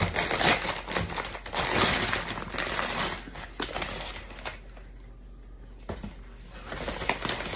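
Packaging crinkling as it is handled and opened, dense and loud for the first few seconds, then dying down to a few separate clicks and taps.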